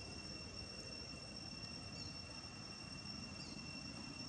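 Steady high-pitched insect drone holding two even tones, with a few faint short chirps over it about two seconds in and again a little later, and a low background rumble underneath.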